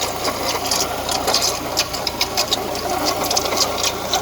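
Ford Fiesta engine running with an ugly, rapid, irregular rattling and clattering from its water pump, the sign of a failing pump. Its pulley seems to be turning untrue.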